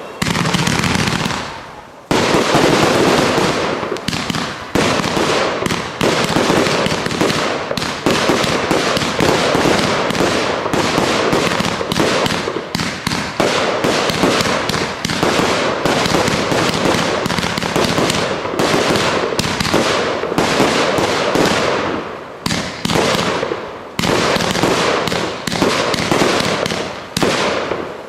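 Fireworks display firing a continuous barrage: rapid, loud bangs and crackling shells one after another, with a couple of brief lulls.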